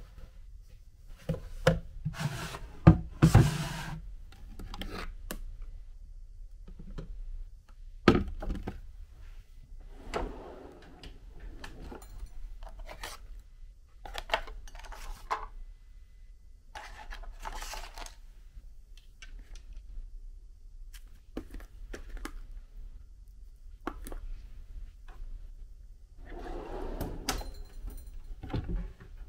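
Wooden drawer and cabinet being handled: scattered knocks and thuds, the loudest a few seconds in, with wood rubbing and light clinks of porcelain cups and glassware.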